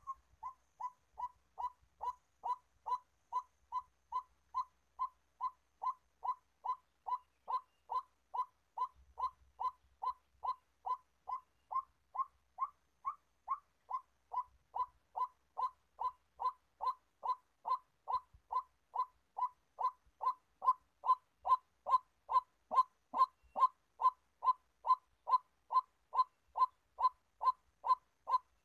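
White-breasted waterhen calling, a single short note repeated monotonously about twice a second. The calls get louder about 20 seconds in.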